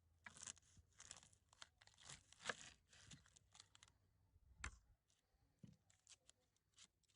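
Quiet crinkly tearing and rustling in a quick run of short bursts, then a single knock about four and a half seconds in, followed by a few light clicks.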